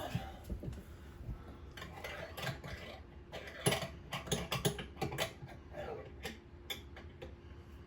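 Small sharp clicks and rattles of sink drain parts being handled and fitted by hand, coming thickest from about halfway through.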